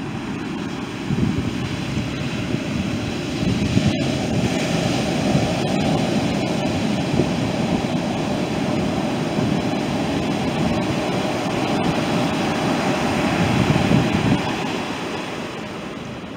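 Ocean surf breaking and washing up a sandy beach, with wind buffeting the microphone in a low rumble. The roar swells near the end, then eases off.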